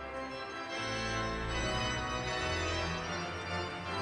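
Background music: an organ playing long, held chords, with the bass notes changing a few times.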